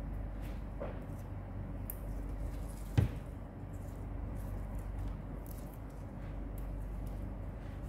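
Fresh arugula (gergir) leaves and stems rustling and crackling softly as fingers pick through them in a plastic bowl, with a single sharp knock about three seconds in, over a steady low hum.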